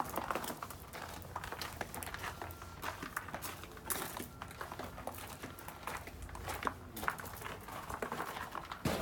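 Footsteps crunching on a gravel path: an irregular run of short crunches from people walking.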